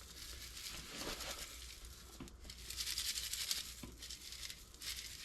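Granular oil absorbent (Speedy Dry) being scattered onto spilled motor oil: a gritty rustling patter, loudest around the middle, with a few light knocks.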